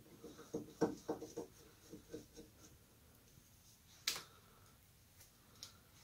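Screwdriver working at a car door's old rubber weatherstripping: a run of soft scraping knocks over the first two and a half seconds, then one sharp click about four seconds in.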